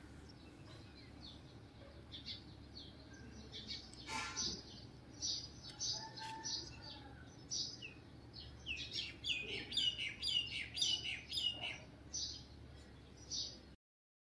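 Small birds chirping: many short, high, falling chirps over a faint steady background hiss, growing busy and rapid in the second half. There is a single sharp click about four seconds in, and the sound cuts off abruptly just before the end.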